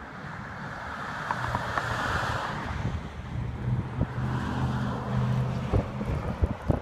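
Cars passing on a multi-lane highway, tyre and engine noise swelling about two seconds in and then easing, with wind on the microphone.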